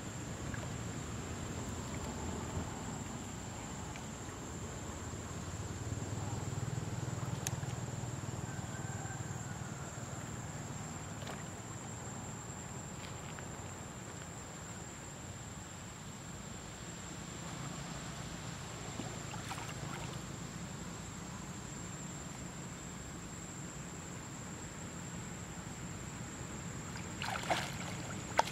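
Pond water sloshing and lapping around swimming macaques, with a few quick splashes near the end.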